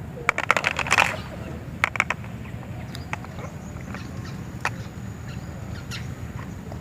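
Light clicks and taps of small utensils against miniature cookware: a quick run of them in the first second, a couple more about two seconds in, then scattered single clicks over a steady low hum.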